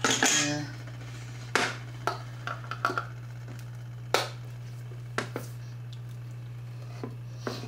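A stainless steel mixing bowl with a fork in it clatters and rings as it is moved on the counter, then a hand-held can opener clicks and clunks as it is clamped onto a small tin can and turned around the rim, with irregular sharp clicks every second or so.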